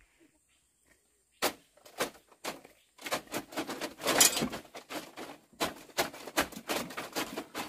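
Near silence, then a few sharp knocks about a second and a half in, followed from about three seconds by a dense, continuous run of clattering and rustling.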